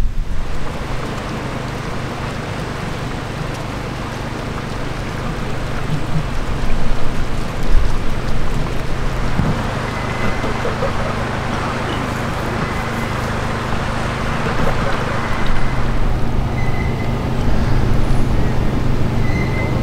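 Steel-wheeled rail carriage of a canal inclined-plane boat lift rolling along its track with a tour boat aboard. A steady low hum over a rumble grows stronger from about halfway in.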